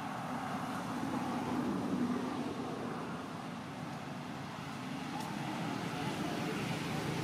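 Steady outdoor background rumble and hiss, even in level throughout, with a faint tick about five seconds in.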